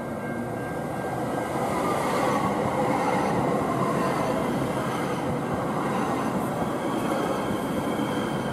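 Kinki Sharyo P3010 light rail train of the LA Metro A Line pulling in and rolling close past the platform: the rumble and rush of its wheels and cars grow louder about two seconds in and then hold steady as the cars go by.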